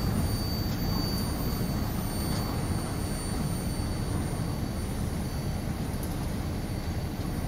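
Last tank cars of a freight train rolling past and away. The wheels on the rails make a steady low rumble that slowly fades.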